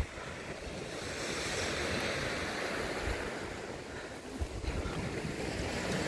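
Sea surf washing on the beach, with wind rumbling on the microphone; the wash swells about a second in and again near the end.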